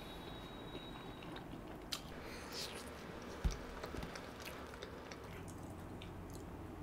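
Close-miked chewing of pizza: soft mouth and chewing sounds with scattered small clicks. A single dull knock about three and a half seconds in.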